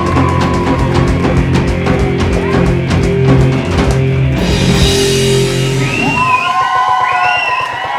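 Live rock band playing the final bars of a song. It ends about four seconds in on one big crash chord that rings out. Near the end the audience cheers and whoops.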